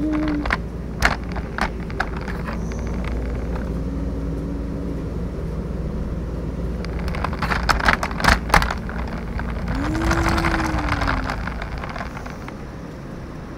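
Wheels rolling over rough asphalt and concrete: a steady low rumble with scattered knocks and a cluster of clatters about seven to eight and a half seconds in. Two short wavering tones rise and fall over the rumble.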